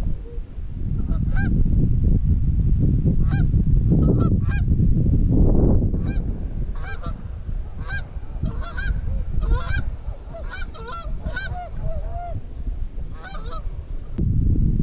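Canada geese honking: many short honks, thickest in the middle, over a heavy low rumble of wind on the microphone.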